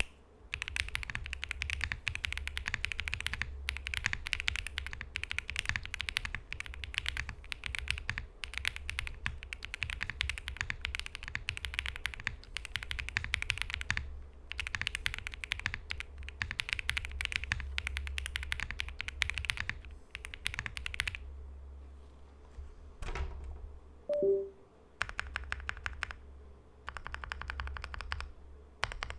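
Mechanical keyboard with new switches being typed on quickly, a dense stream of key clacks. About two-thirds through the typing thins to a few keystrokes and one brief louder pitched sound, then resumes in short bursts.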